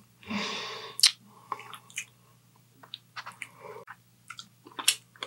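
Close-miked eating: a person chewing food with wet mouth clicks and small crunches, scattered sharp clicks throughout. A loud breathy noise comes just before the first and loudest click, about a second in.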